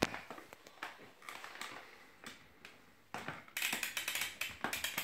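Plastic Play-Doh ice cream maker toy clicking and rattling as its handle is worked. There are scattered single clicks at first, then a quick, louder run of ticks and rattles from about three seconds in.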